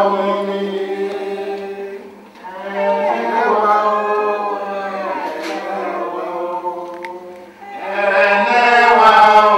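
Voices singing in long held phrases: three phrases with short breaks about two and seven and a half seconds in, the last one the loudest.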